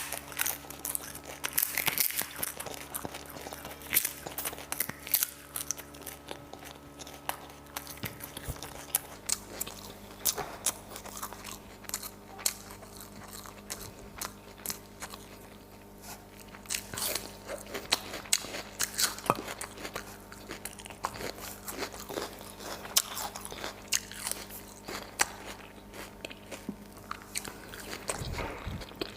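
Close-miked eating: a person biting and chewing crunchy food, with many short, sharp, irregular crunches and mouth clicks.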